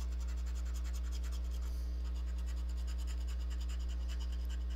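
A coin scratching the coating off a scratch-off lottery ticket in rapid, short back-and-forth strokes, over a steady low electrical hum.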